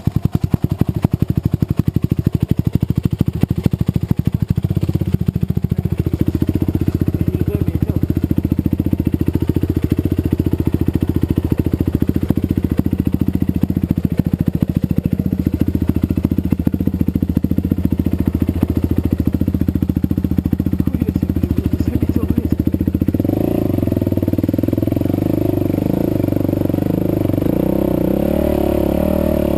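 Yamaha WR450F 450 cc four-stroke single-cylinder engine idling steadily, freshly rebuilt with a new piston and rings. About 23 seconds in, the idle rises a little and stays higher.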